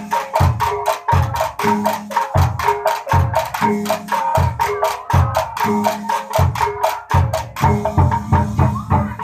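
Dongkrek, East Javanese folk percussion music: fast wooden clicking over a low drum stroke that repeats about every three-quarters of a second, with ringing metal tones held underneath. Near the end the fast clicking stops and the drum carries on.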